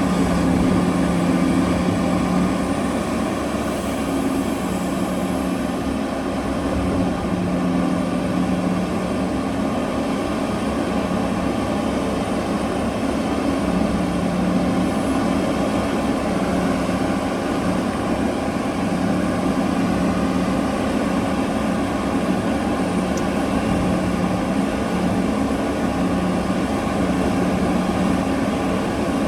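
Heavy mining machinery, a large excavator loading a haul truck, running steadily: a continuous engine drone with a low, even hum.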